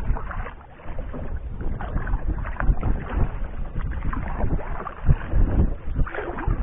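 Water lapping and splashing against the hull of an Old Town Discovery 133 canoe under way on a choppy lake, with wind buffeting the microphone in uneven gusts.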